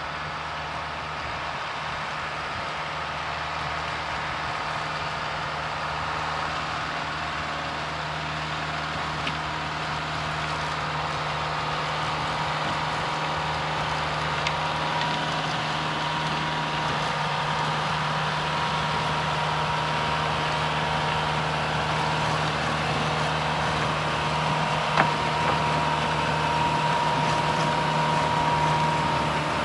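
John Deere 5100R diesel tractor running at a steady working speed while driving a rotary tiller, with a steady whine over the engine hum; the sound grows gradually louder as the tractor comes closer. A single sharp click near the end.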